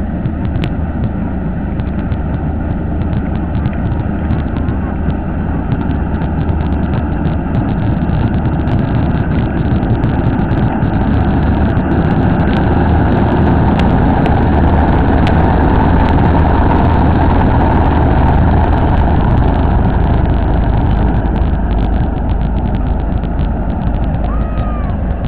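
A Kartar 4000 combine harvester runs at working speed while cutting and threshing a crop, a steady heavy engine hum with a fast scatter of light ticks. It grows louder as the machine draws close, is loudest about halfway through, and eases slightly near the end as it passes.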